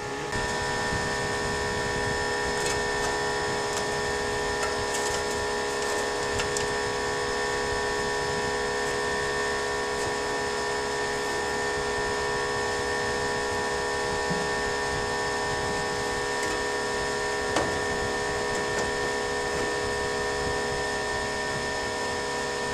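A motor-driven machine running steadily, a constant hum with several fixed tones, plus a sharp click about seventeen seconds in.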